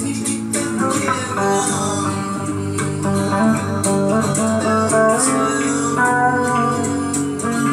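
Guitar playing in a bluesy jam: a run of changing single notes, some sliding in pitch, over steady low notes.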